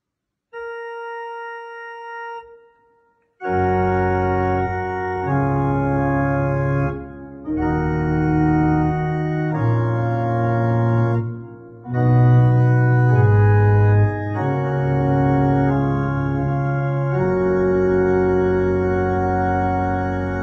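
Organ playing a slow closing Amen in sustained full chords. It opens with a single held note, and the full chords with a deep bass come in about three seconds in.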